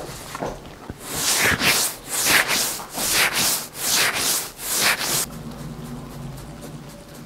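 Gloved hands rubbing over a man's short beard stubble in about five scratchy strokes, a little under a second apart, stopping about five seconds in.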